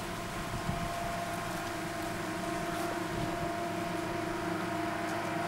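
Steady engine drone with several held tones over a low hum, getting slightly louder near the end.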